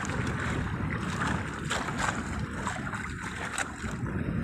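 Strong wind buffeting the microphone: a steady rushing noise, with a few light knocks.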